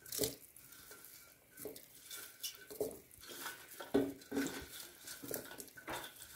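Washed broccoli florets tipped by hand from a metal strainer bowl into a pot of soup: faint, irregular soft plops and taps, with light clinks of the metal bowl against the pot.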